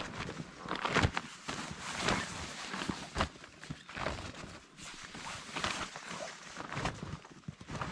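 Rustling, scraping and irregular thumps of a folded PVC inflatable boat being handled and stuffed into its carry bag, with the loudest thump about a second in.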